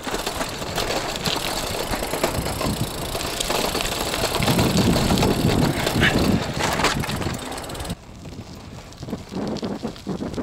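Bicycle rolling over a rough, broken path: a steady rattling noise that drops off suddenly about eight seconds in.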